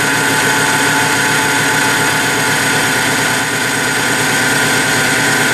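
Pulse-driven electric motor turning a generator under load, running steadily: a low rough hum with a steady high-pitched whine over it.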